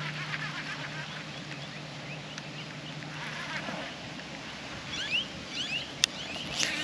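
Birds calling: a run of short rising chirps near the end, over steady outdoor background noise, with a single sharp click just before the end.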